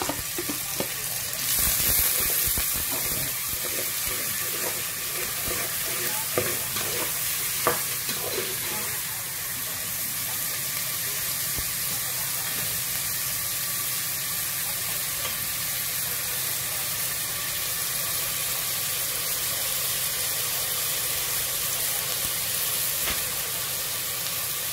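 Chopped onion and garlic sizzling in hot oil in an aluminium pot, the start of a sauté, stirred now and then with a metal spoon scraping against the pot. The sizzle swells about two seconds in, with a few clicks of the spoon and container in the first several seconds.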